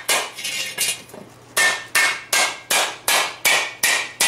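Hammer blows on the rim of a steel frying-pan blank held in tongs on a wooden stump, each strike ringing briefly with a metallic tone. After a break of about half a second, just over a second in, the blows come steadily at two to three a second. The smith is upsetting the hot rim to shrink it so the bottom can be flattened without waves.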